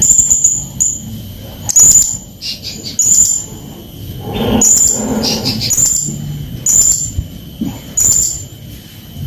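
Blue-crowned hanging parrot (serindit) calling: short, shrill high notes repeated about once a second, with rougher, lower sounds in between.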